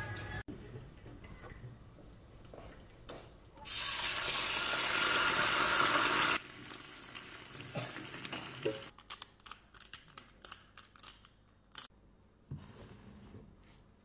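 Eggs frying in hot oil in a nonstick pan: a loud sizzle that starts suddenly and lasts about three seconds, then drops to a quieter sizzle. Near the end comes a quick run of short, dry clicks.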